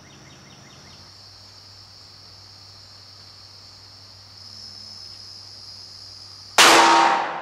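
Steady cricket chirping, then about six and a half seconds in a single loud, sudden pistol shot from a Glock 23 firing a .40 S&W round into a ballistic gel block, ringing away over about a second.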